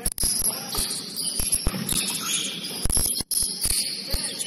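Basketball game court sounds in a gym: scattered thuds of the ball and feet on the hardwood floor, with high-pitched sneaker squeaks.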